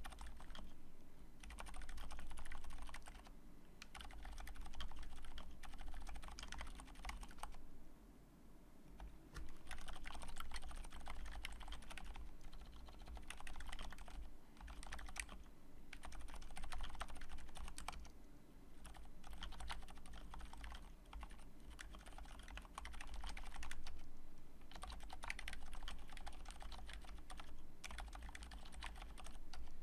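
Continuous typing on a custom mechanical keyboard with lubed silent Cherry MX Red switches on a steel plate: dense runs of soft, damped keystrokes in bursts of a few seconds, broken by short pauses.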